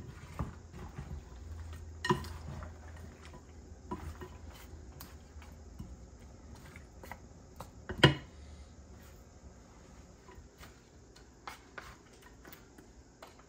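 A wooden spoon and a wooden fork stir and toss seasoned raw goat meat in a glass bowl, giving scattered clicks and knocks of wood against glass. The two loudest knocks come about two seconds in and about eight seconds in.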